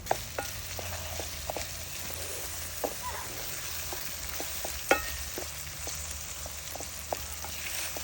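Food sizzling in a pan over a campfire: a steady frying hiss with scattered sharp pops, the loudest about five seconds in.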